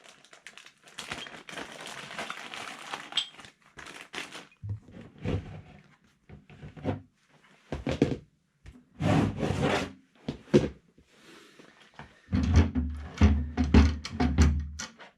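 Kayak cart and conversion-kit parts being handled: a rustle at first, then scattered knocks and clicks, and a run of heavy low thumps near the end.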